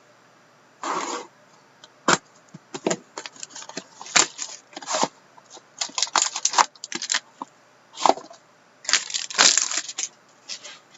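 A sealed trading card box and its wrapping being torn open and handled: irregular crackling, tearing and clicking of plastic wrap and cardboard.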